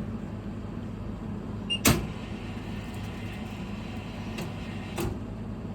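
Steady low mechanical hum from a farm food vending machine, with one sharp click about two seconds in and a softer click near the end.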